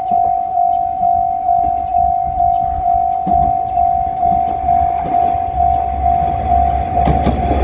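Japanese level-crossing warning bell ringing steadily at about two strokes a second. A diesel railcar's rumble builds under it from about five and a half seconds in, and the train reaches the crossing near the end.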